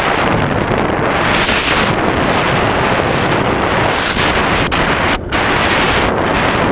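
Loud, steady wind rushing over the microphone of a camera on a moving motorbike, dipping briefly about five seconds in.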